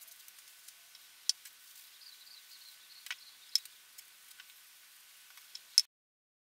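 Faint clicks and ticks of an aluminium finishing-oil bottle and tissue being handled in gloved hands, over a faint hiss; the loudest click comes just before the sound cuts to silence near the end.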